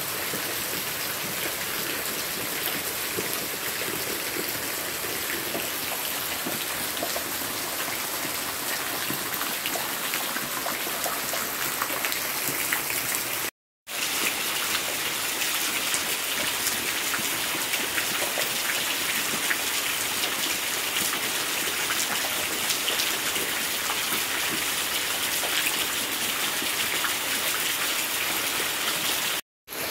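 Heavy rain falling steadily, with water pouring down and splashing onto wet concrete in the second half. The sound drops out for a moment about halfway through and again near the end.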